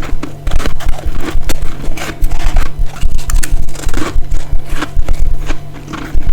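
Close-miked biting and chewing of freezer frost: a rapid, irregular run of loud crisp crunches, several each second.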